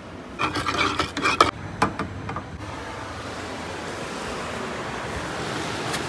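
A spoon clinking and scraping against a coffee jar and a small copper coffee pot while coffee is spooned out, a few sharp clinks in the first couple of seconds. Then the steady rush of surf and wind, slowly growing louder.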